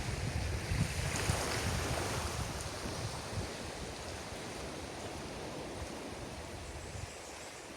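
Surf breaking on a beach: a wave's wash swells about a second in and slowly fades as it runs out. Wind buffets the microphone at the start.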